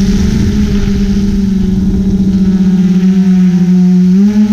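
A drone's motors and propellers humming loudly at a steady pitch, heard from the drone's own camera, with a slight rise in pitch near the end as the drone changes speed.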